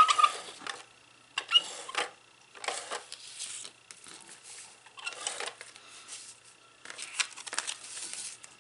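Cardstock paper pieces rustling and sliding as they are handled and laid on the page, in several short irregular bursts.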